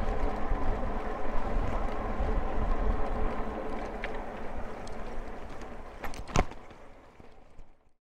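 Wind rushing over the microphone and rolling noise while riding an e-bike, with a faint steady whine underneath. A sharp click sounds about six seconds in, and everything fades out over the last couple of seconds.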